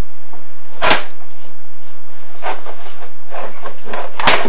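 Chimney inspection camera and its push rod knocking and scraping against the flue liner as they are worked down the chimney: two sharp knocks, about a second in and near the end, with rubbing scrapes between.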